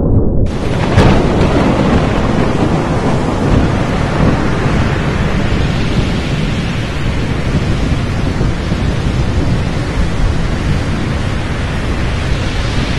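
Thunderstorm sound effect: a loud, steady wash of rain over low rumbling thunder, with a sharp crack about a second in.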